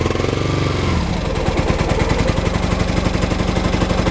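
Honda Nighthawk 450's parallel-twin engine running. It is revved briefly in the first second, its pitch rising and falling back, then settles to a steady, rapidly pulsing run. It sounds pretty good for a bike that sat in a garage for 20 years.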